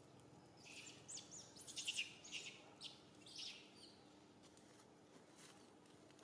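Birds chirping: a quick flurry of short, high chirps and sweeping calls from about a second in to about three and a half seconds in, over a faint steady hum.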